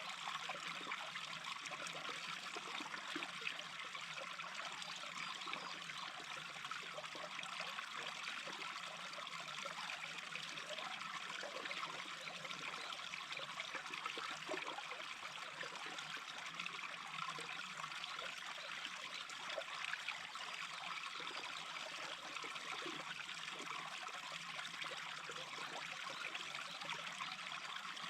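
Small brook babbling steadily.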